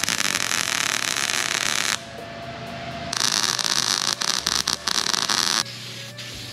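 MIG welder arc crackling and sizzling as it lays a bead on a steel electrical box, in two runs of about two seconds with a short pause between them. Near the end it gives way to a quieter steady hum.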